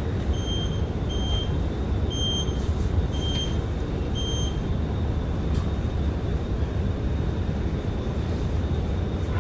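Inside an R151 MRT train: a steady low rumble, with a run of six short, high-pitched electronic beeps about a second apart that stop about four and a half seconds in.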